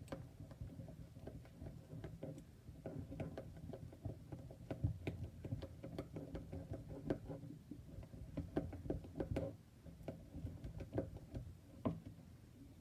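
Silicone spatula stirring a thick pink glue slime mixture in a bowl, with irregular soft taps and clicks as it hits and scrapes the bowl.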